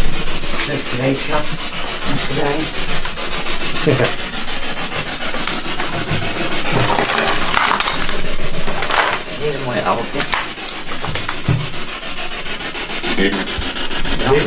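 Handheld spirit box radio hissing with loud, steady static, broken by rapid clicks and now and then a brief, faint snatch of a voice.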